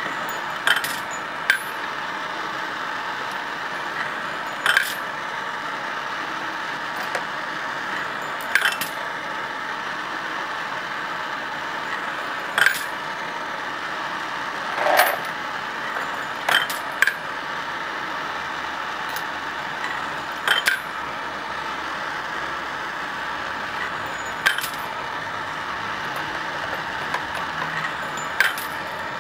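Two gas torches hiss steadily on a rotary rifle-case annealer while it indexes .308 brass cases through the flames. About every four seconds there is a sharp metallic clink as an annealed brass case drops out.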